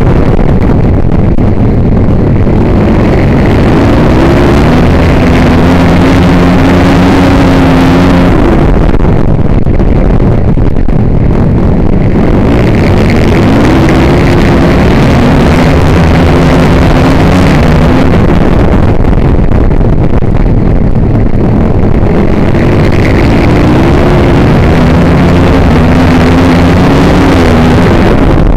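Flat-track racing motorcycle engine heard on board over a constant loud rushing noise, its pitch climbing and dropping back in a cycle roughly every nine seconds as it is throttled up and backed off around the dirt oval.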